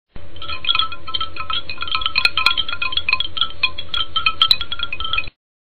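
Short channel-intro music: a quick run of bright, chiming struck notes over a steady low backing, cutting off abruptly about five seconds in.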